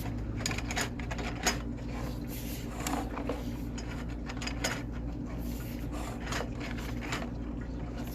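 Irregular scraping and clicking over a steady low hum as a sewer inspection camera's push cable is fed further down the drain line.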